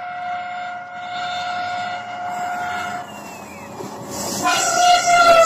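Diesel multiple-unit passenger train sounding its horn as it approaches: a long steady blast that stops about three seconds in, then a second blast over a second later whose pitch drops as the train draws level. The rumble of wheels on rail grows loud near the end.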